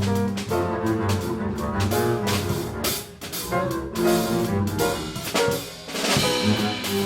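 Live jazz combo playing an instrumental passage: double bass and drum kit with cymbals under pitched melodic instruments.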